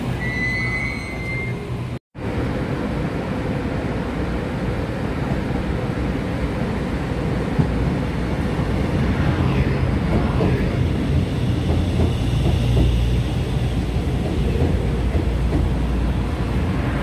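Electric commuter train running into the platform, its wheels and running gear rumbling louder and louder as the cars draw level, with a motor whine that changes pitch. Before a break about two seconds in, a departing stainless-steel EMU gives a brief high tone.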